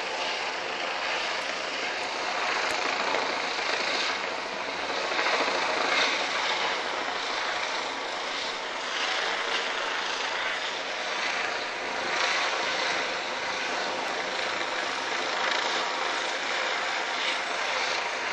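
Police helicopter flying overhead: a steady drone of its engine and rotor, swelling slightly now and then.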